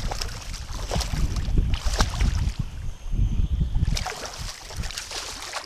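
Hooked smallmouth bass splashing and thrashing at the surface beside a kayak as it is brought in to the net. Wind rumbles on the microphone and eases about four seconds in.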